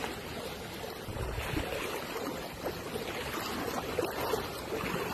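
Flowing water: a steady rushing noise with small scattered splashes.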